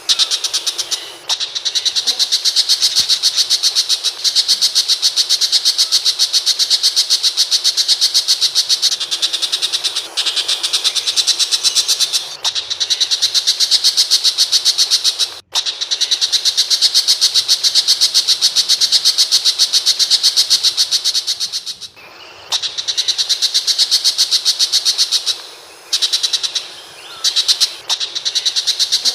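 Tiger shrike calling: long, fast runs of evenly repeated sharp notes, broken by short pauses several times.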